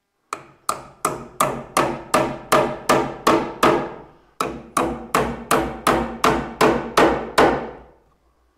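Hammer driving nails into a wooden wall stud to fasten an electrical box: two runs of steady blows, about ten then nine strikes at roughly three a second, each ringing briefly, with a short pause between the runs.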